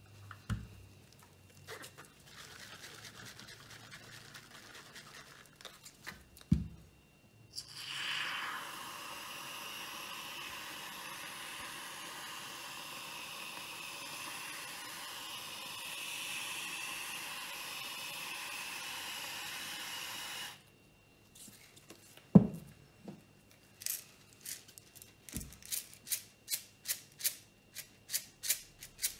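Aerosol can of whipped cream spraying onto a drink in one long, steady hiss that lasts about thirteen seconds and cuts off suddenly. Near the end comes a sprinkles shaker rattling in quick, even shakes, about three a second, with a few knocks of things being set down on the table.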